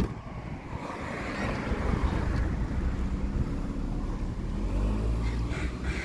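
A car running: a steady low engine hum with road noise, swelling a little partway through.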